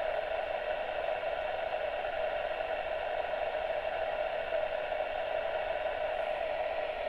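Xiegu G90 transceiver's receiver hiss on FM with the squelch open and no station on the channel: a steady hiss with no high treble.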